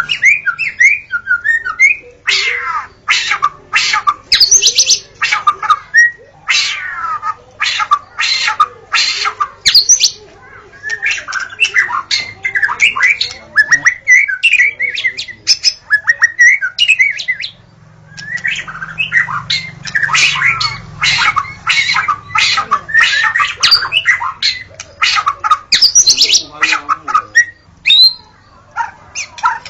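Wild white-rumped shama singing: a fast, varied stream of loud whistled phrases that slide up and down, mixed with harsh rattling chatter notes, with a couple of short lulls about halfway.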